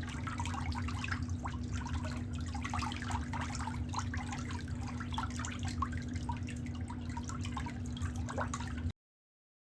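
Water dripping and trickling in quick, irregular small splashes over a steady low hum. The sound cuts off abruptly just under nine seconds in.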